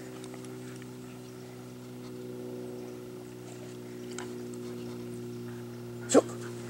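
German shepherd held by the collar gives one short, sharp yelp about six seconds in, eager to be released to search. Under it runs a steady low hum.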